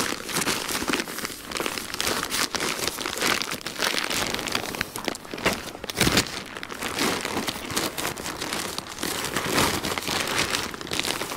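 Stiff, crinkly sheet material being handled and spread out by hand. It rustles and crackles continuously, with many sharp crinkles.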